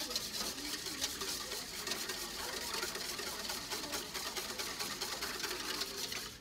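Wire whisk beating eggs and milk in a stainless steel mixing bowl: a rapid, steady run of clicks and scrapes as the wires strike and drag against the metal.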